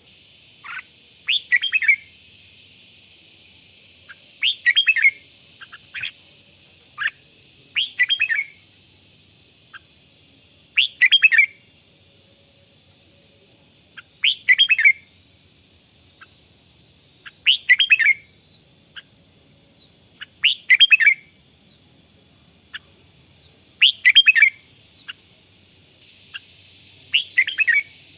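Red-whiskered bulbul singing: short phrases of quick, bright chirping notes repeated about every three seconds, over a steady thin high tone.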